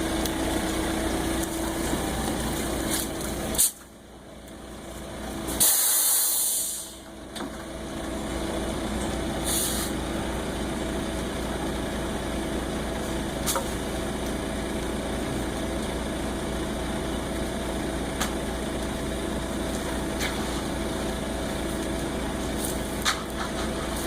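Concrete mixer truck's engine running steadily, with a loud burst of hissing air about six seconds in and a shorter hiss near ten seconds.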